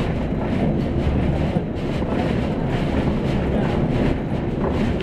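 Interior ride noise of a 2005 Neoplan AN460LF dual-mode bus under way: a steady low rumble with scattered rattles and knocks from the body and fittings.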